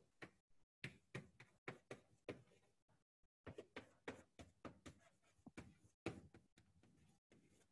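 Chalk tapping and scratching on a chalkboard as words are written: a faint run of short, irregular taps, a few a second, with brief pauses between words.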